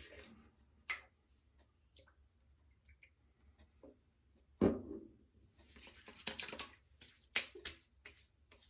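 Aftershave splash being handled and applied by hand: a few small clicks, a thump about halfway, then quick slaps and pats of wet palms on the face for a couple of seconds near the end.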